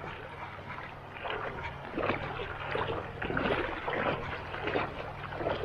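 Footsteps wading through shallow river water over cobbles, splashing in a steady walking rhythm of roughly one step every two-thirds of a second.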